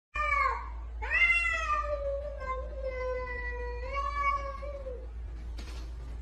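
Cat meowing: a short meow, then one long drawn-out yowl of about four seconds that rises in pitch at the start and falls away at the end.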